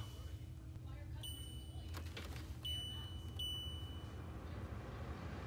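Levoit air purifier's touch control panel beeping three times as its buttons are pressed, each a single high, steady beep, over a low steady hum.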